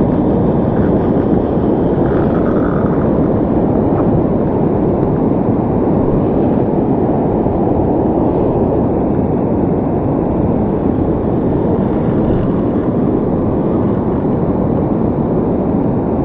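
Wind blowing over the microphone, a steady low rumble that flutters, mixed with breaking surf.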